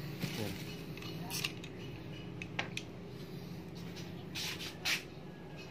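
Faint rustling and a few sharp clicks of small things being handled, over a steady low hum. The rustles are loudest near the end.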